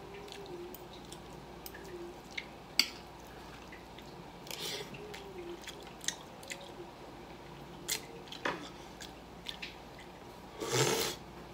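Eating sounds: mouth chewing and squishing, with scattered sharp clinks of a metal spoon and fork against a ceramic plate. A longer, louder burst of noise comes near the end.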